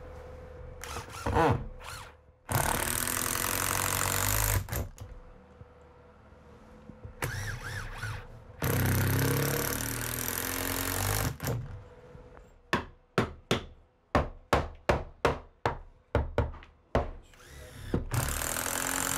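Cordless drill driving long screws into a wooden 2x6 header in bursts of a few seconds. About two thirds of the way in, a quick run of a dozen or so hammer blows knocks a wooden framing piece into place.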